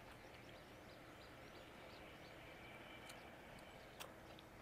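Near silence: sapodilla fruit being chewed softly with closed lips, with faint wet mouth clicks and one sharper click about four seconds in.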